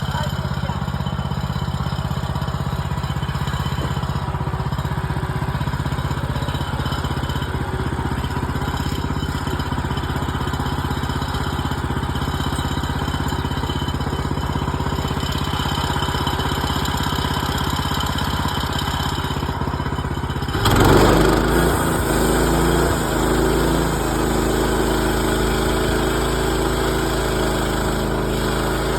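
HM130 Max bandsaw mill's gas engine running steadily. About twenty seconds in, the sound jumps suddenly louder and changes pitch, then settles to a steady run a little louder than before.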